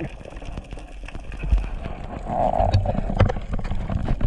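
Underwater ambience picked up by a submerged camera: a low rumble of moving water with many scattered sharp clicks and knocks, and a brief muffled hum about two and a half seconds in.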